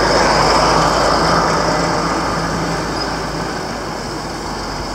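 A road vehicle passes close by, its tyre and engine noise loudest at first and fading steadily as it moves away.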